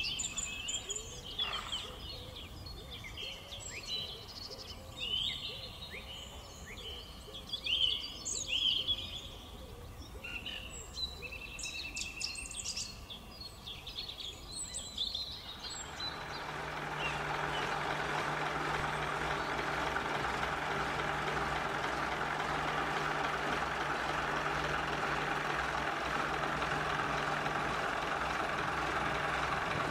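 Birds singing and chirping. About halfway through, a steady diesel engine idle with a constant low hum takes over: the underfloor engine of a green first-generation diesel multiple unit car.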